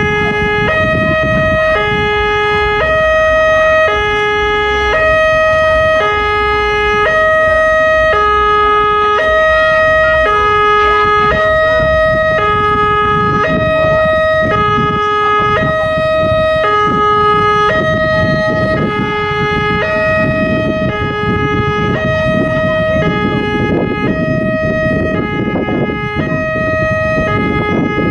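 Railway level-crossing alarm sounding its warning that a train is approaching: an electronic two-tone signal alternating between a lower and a higher note about once a second, over a steady higher tone. A low rumbling noise underneath grows louder in the second half.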